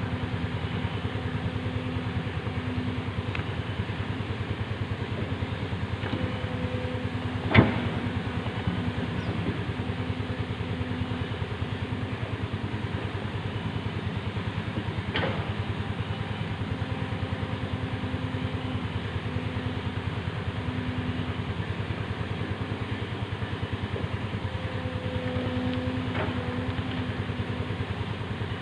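Excavator's diesel engine running steadily, with a humming tone that comes and goes. A single sharp clank sounds about seven and a half seconds in, and a lighter one about halfway through.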